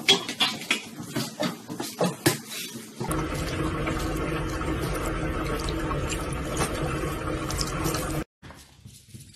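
A quick run of sharp clicks and knocks, then a bathroom faucet running steadily into a sink for about five seconds before cutting off suddenly.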